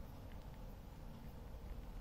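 Faint, steady room tone: a low rumble with light hiss and a faint hum, no distinct event.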